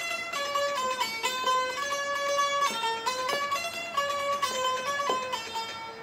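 Bulbul tarang (Indian banjo) plucking a single-note melody, its notes stepping up and down a few times a second.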